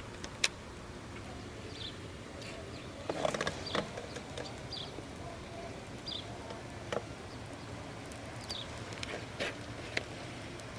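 Scattered light knocks and clicks from fishing gear being handled in a small boat, with a few brief high chirps over a low steady background.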